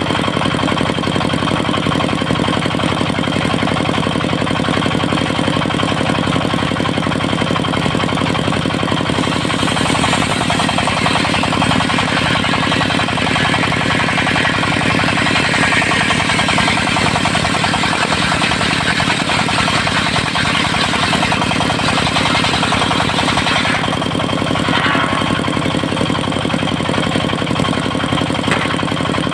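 Diesel engine of a mobile circular sawmill running steadily. From about ten seconds in, for roughly a quarter minute, a broader higher noise rides over the engine, as the circular saw blade cuts through teak.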